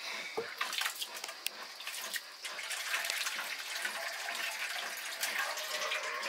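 Liquid splashing and trickling as jaand, fermented millet beer, is strained.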